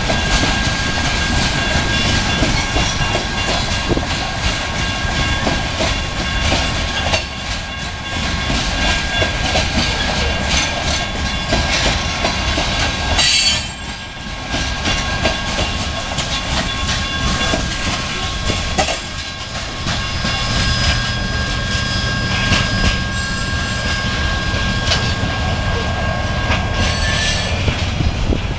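Coal train's hopper cars rolling past, wheels clattering over the rail joints, with a steady high-pitched squeal from the wheels that stops near the end.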